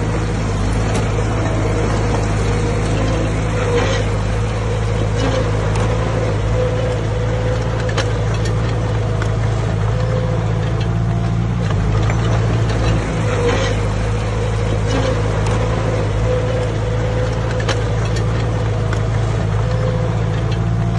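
Komatsu D20A bulldozer's diesel engine running steadily under work, with scattered clicks and knocks over the drone.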